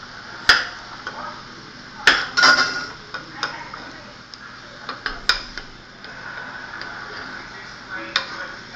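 A utensil stirring a bubbling mixture in a saucepan, knocking against the side of the pan about five times.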